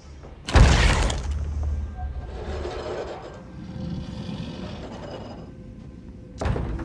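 A heavy bang against a wooden front door about half a second in, with a deep rumble that fades away, then scraping and scratching, and a second loud bang near the end.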